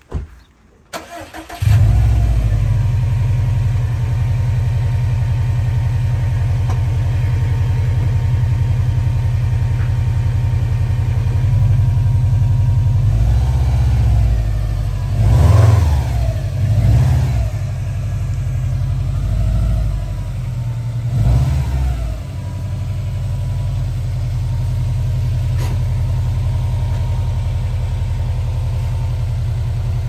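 Subaru WRX STI's turbocharged flat-four engine cranking briefly and catching, then idling steadily. The throttle is blipped three times about halfway through, each a short rise and fall in revs, before it settles back to idle.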